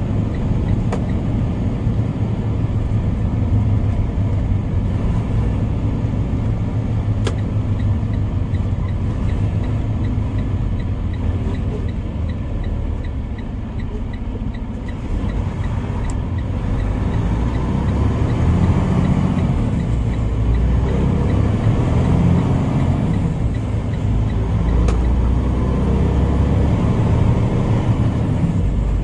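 Semi-truck's diesel engine and road noise heard from inside the cab while driving: a steady low rumble that eases off briefly around the middle and then pulls harder as the truck gets up to speed.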